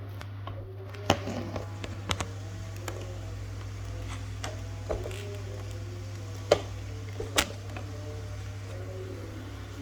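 Several short, sharp clicks and taps, spaced irregularly over a steady low hum; the loudest comes a little past the middle.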